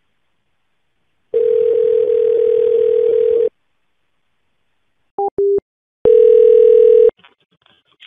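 Telephone line tones between calls: a steady dial tone for about two seconds, then a few short beeps, then a single ringing tone about a second long as the next number rings.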